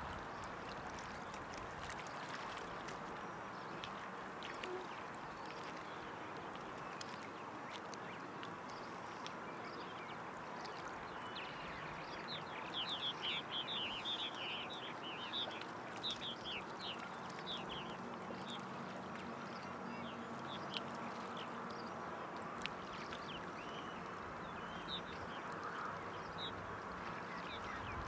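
River water flowing and lapping in a steady wash, with small ticks of water. Near the middle, a bird gives a quick run of high chirps, and a few more chirps follow later.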